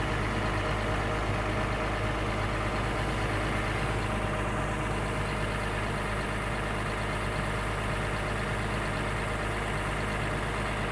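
Komatsu PC230-8 excavator's diesel engine idling steadily.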